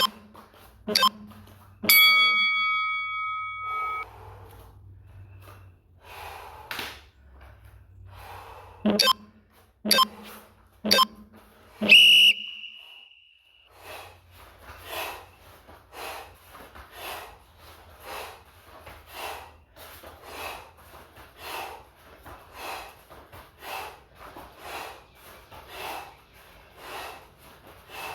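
Interval workout timer counting down: three short ticks a second apart, then a held beep, twice, about ten seconds apart. Then rhythmic heavy breathing from the exertion, about one and a half breaths a second.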